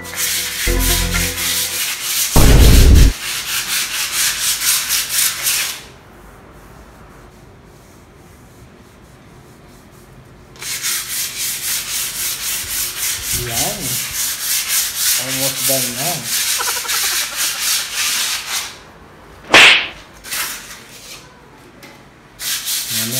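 Sandpaper rubbed by hand over a painted wall in quick back-and-forth scraping strokes, scuffing off the old, peeling paint before repainting. The strokes stop for a few seconds after about six seconds and start again. A heavy low thump about two and a half seconds in is the loudest sound, and there is a sharp crack near the end.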